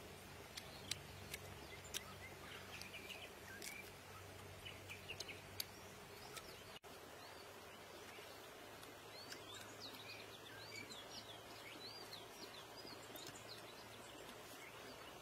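Quiet forest ambience with small birds chirping, a run of repeated short chirps in the second half. A few sharp clicks sound in the first six seconds.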